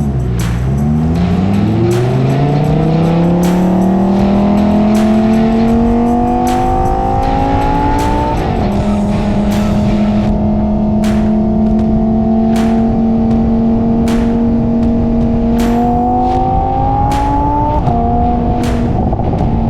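Supercar engine accelerating hard, its pitch climbing for about eight seconds before an upshift drops it. It then runs steadily, climbs again briefly and shifts once more near the end. Background music with a steady beat runs underneath.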